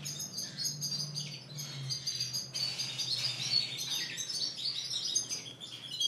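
Several caged Spanish timbrado canaries chirping and singing at once, many short high calls and trills overlapping.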